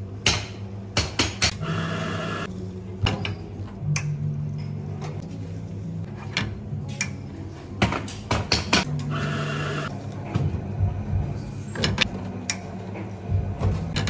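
Barista work at a commercial espresso machine: repeated clicks, knocks and clinks of the portafilter, metal parts and cans, with two short bursts of noise about a second long.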